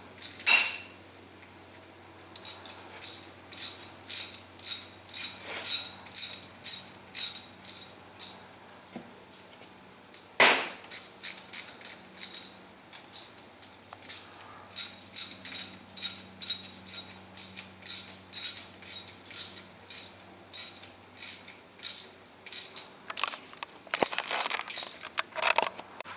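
Ratchet wrench worked in short, quick strokes, a sharp metallic clicking about two to three times a second, with a few louder clanks of metal on metal; the bolts of the engine's timing chain follower are being run in.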